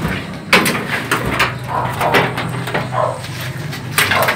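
Metal clunks and knocks of a car hood being lifted and propped open, with a sharp knock about half a second in and another near the end.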